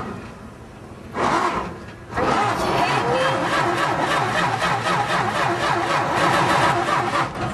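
A car engine being cranked by its starter without catching, the sign of a flooded engine. There is a short crank about a second in, then a long, steady, rhythmic crank from about two seconds in.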